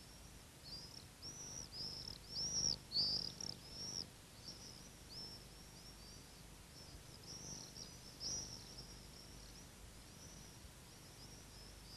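Common swifts screaming: a run of short, shrill, arching calls that is densest and loudest about two to four seconds in, then more scattered.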